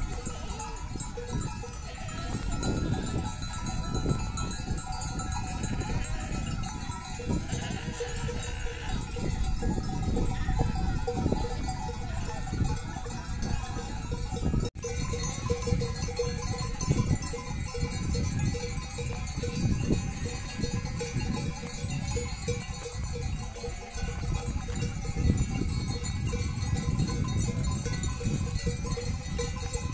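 A flock of sheep, the bells hung on the animals clinking steadily.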